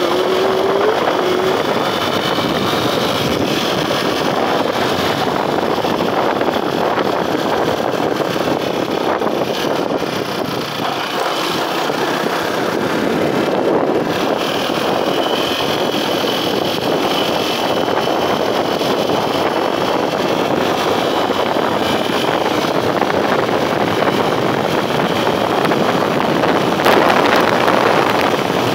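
Steady rush of wind over the microphone mixed with the engine of a small motorcycle being ridden at road speed.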